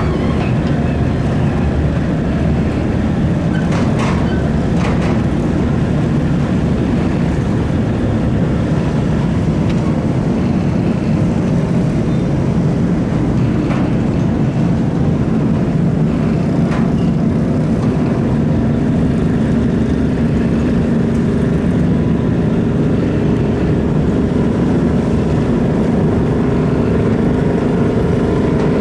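A boat engine running with a steady low drone, with a few faint clicks about 4 and 5 seconds in.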